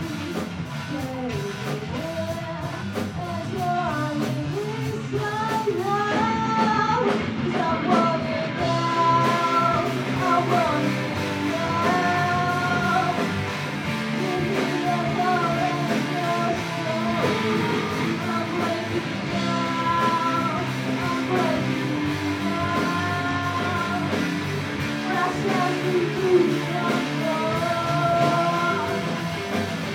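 Live rock band playing a song: a singer over guitar, bass, drums and keyboard.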